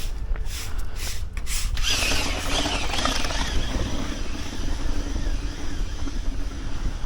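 Wind rumbling on the microphone of a runner's body-worn camera, with regular footfalls in the first two seconds; about two seconds in, a passing motor vehicle's hiss and low hum rises and slowly fades.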